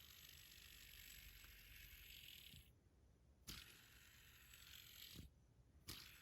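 Stainless steel Sage fidget spinner whirring faintly on its bearing. It stops just under three seconds in, is flicked back into a spin with a click about half a second later, stops again near five seconds, and is flicked once more near the end.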